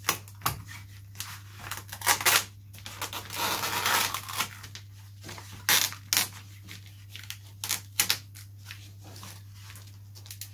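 Covering being peeled and torn off a balsa model-aircraft wing frame by hand: crackling, rustling and sharp clicks, with a longer tearing rip about three seconds in. A low steady hum runs underneath.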